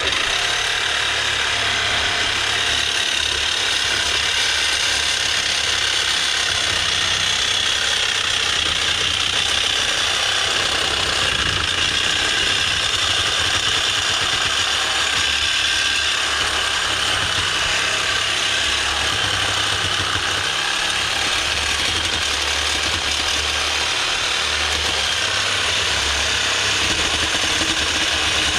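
Power saw with a coarse wood-cutting blade cutting through a metal exhaust pipe, starting abruptly and running steadily without a break. The wrong blade for metal: its big teeth cut poorly.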